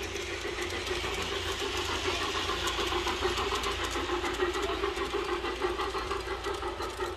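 Large-scale garden model train, a steam locomotive hauling freight cars, running past on outdoor track: a steady hum with rapid clicking of wheels over the rail joints, growing louder towards the middle as it comes close.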